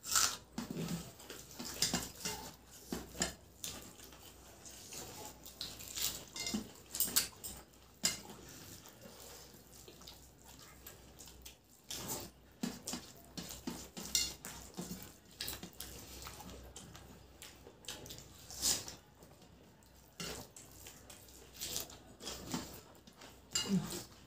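Hands mixing and scooping rice and egg curry on stainless steel plates: irregular scrapes and clinks of fingers against the steel, with chewing in between.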